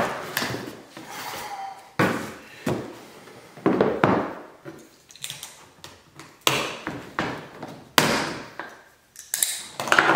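Unpacking noises: a string of sharp knocks and thumps as a plastic tool case and cardboard packaging are handled on a stone countertop, with scraping from a utility knife cutting the packaging.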